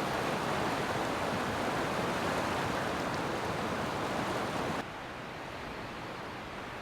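River water rushing steadily. A little under five seconds in, it cuts abruptly to a quieter, more muffled rush.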